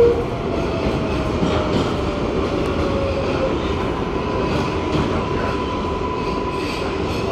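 New York City subway 7 train running, heard from inside the car: a steady rumble of wheels on rails, with a faint whine that slides slightly down in pitch and then holds steady from about halfway through.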